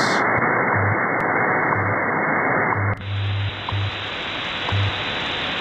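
Shortwave receiver hiss from the WWV time-signal frequency on 15 MHz, with faint ticks about once a second and short low hum pulses of WWV's 100 Hz time code. About three seconds in, the hiss turns wider and brighter as the receiver switches to AM.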